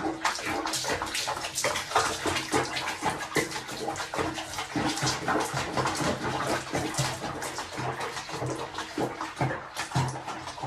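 Water splashing and sloshing in a rapid, continuous run of splashes.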